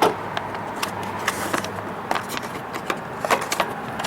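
Light plastic clicks and knocks as a lawn mower's air filter cover is worked into its slots by hand. There is a sharper knock right at the start and a cluster of clicks near the end, over a steady background hiss.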